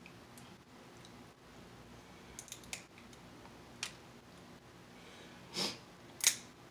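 Cooked crab shell being picked and cracked apart by hand: a few faint scattered clicks and snaps, then a short sniff about five and a half seconds in and a sharper crack just after.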